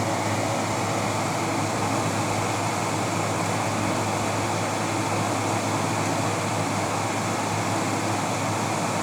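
Frigidaire FRA123BU1 12,000 BTU window air conditioner running steadily, set to cool: an even rush of blowing air over a constant low hum.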